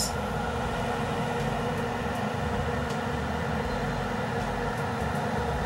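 Steady mechanical hum with several held tones, unchanging throughout, with a few faint ticks.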